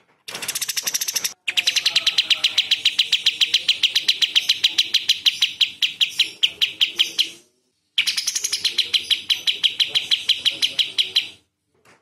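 Kapas tembak bulbul singing its rapid-fire 'tembakan' song: sharp, harsh notes repeated at about nine a second. They come in three runs broken by short silences, the middle one lasting about six seconds.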